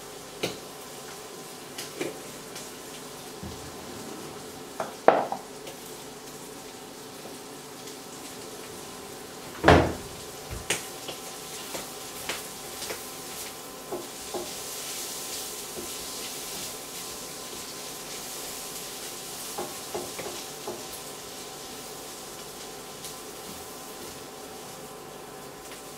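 White beans sizzling in a de Buyer iron frying pan, with a wooden spatula knocking and scraping against the pan as they are stirred; the loudest knocks come about five and ten seconds in.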